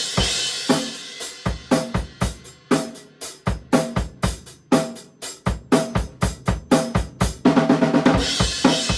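Drum kit played in a steady rock beat of bass drum, snare and hi-hat, accented by a Zildjian A Custom 19-inch Brilliant crash cymbal. The crash washes out at the start and is struck again about three-quarters of the way in, over a quick run of hits.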